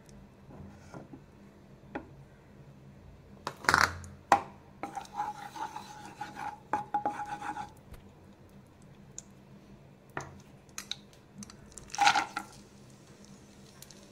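Kitchen clatter and scraping around a nonstick kadai of hot ghee. There is a burst of knocks and rubbing about four seconds in, then another about twelve seconds in as almonds and cashews are tipped into the pan.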